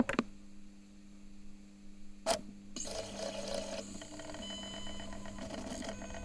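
A mechanical sound under the title cards: a sharp click, then a steady low hum, a second click a little past two seconds in, and from about three seconds a fast, even mechanical ticking and whirring over the hum.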